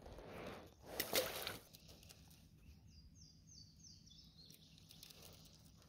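A splash about a second in as a released crappie is dropped back into the lake. Then a bird sings a run of short high notes, each falling in pitch.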